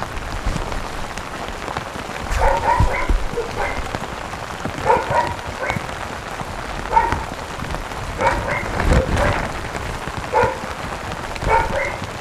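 Steady rain falling, with a dog barking in short clusters every couple of seconds from about two seconds in.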